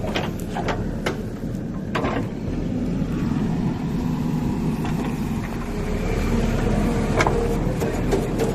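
JCB 3DX backhoe loader's diesel engine running at a steady pitch, with a few sharp clanks over it.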